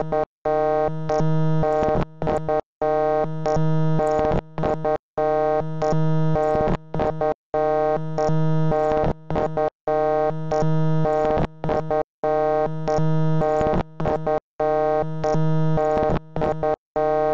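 Harsh electronic synthesizer tone played as a loop, repeating about every two and a half seconds. Each loop is a held buzzy chord followed by rapid choppy stuttering, with short gaps between loops.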